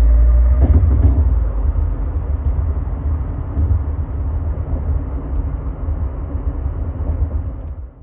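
Cabin sound of a moving 2022 Subaru Crosstrek with an STI muffler on its 2.5 L FB25 flat-four: a steady low exhaust and road rumble. Tires whine on a concrete bridge surface until just under a second in, when two thumps come and the whine stops. The rumble fades out at the end.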